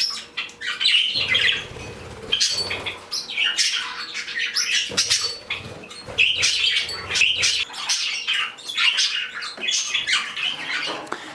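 A flock of pet budgies and parakeets chirping and chattering continuously, with a few short whirs of wingbeats as birds fly past.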